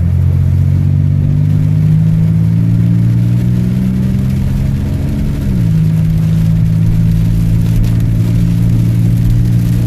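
Car engine heard from inside the cabin while driving, pulling steadily with its pitch slowly rising, then dropping about five and a half seconds in as the transmission shifts up, and running evenly after that.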